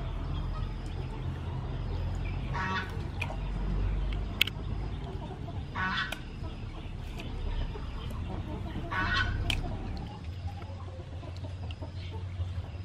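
A chicken calls three times, about three seconds apart, each call short. Under it are small clicks and soft wet handling from squid being rinsed and peeled in a metal basin of water.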